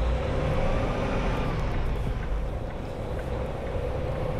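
Peterbilt 579 semi truck driving, a steady low engine and road rumble heard from outside the cab.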